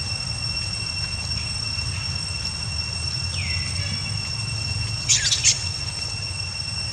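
Outdoor ambience: a steady high-pitched drone over a low rumble, a short call falling in pitch about three and a half seconds in, and a loud harsh rasping burst about five seconds in.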